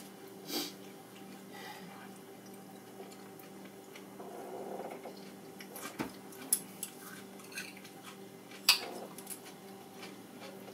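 Table-eating sounds: chopsticks clicking and clinking now and then against ceramic bowls and a glass serving platter, the sharpest clink about three-quarters of the way in, over a steady low hum.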